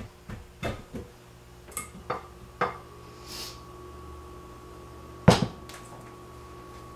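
Glass mixing bowl of a KitchenAid Artisan stand mixer being twisted loose and lifted off the mixer's base: a run of short clunks and knocks of glass on metal, then one sharp, louder knock about five seconds in.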